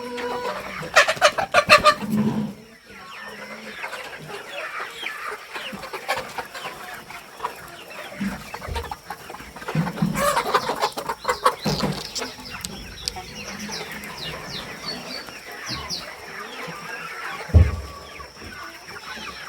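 A flock of young layer pullets clucking and calling over one another. A short, loud, low thump comes near the end.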